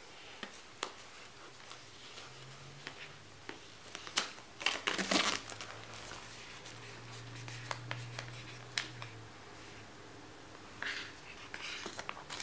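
Packaging of an Apple USB SuperDrive being handled and opened: scattered light clicks and taps, with short bursts of crinkling about five seconds in and again near the end.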